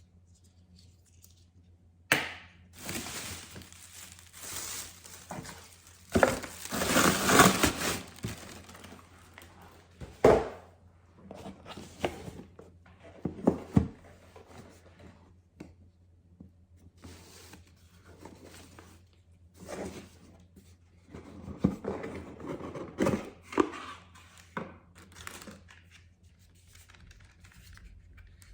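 Packaging being opened and handled by hand: paper or wrapping tearing and crinkling in irregular bursts, with a few knocks. The longest and loudest stretch of crinkling comes about six to eight seconds in.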